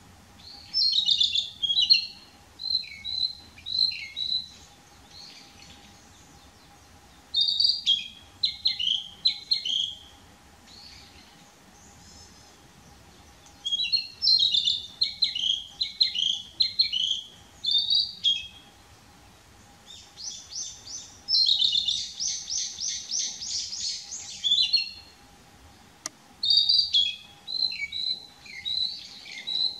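Male narcissus flycatcher singing from a perch: five phrases of varied clear whistled notes, a few seconds apart, one of them near the middle a fast run of rapidly repeated notes.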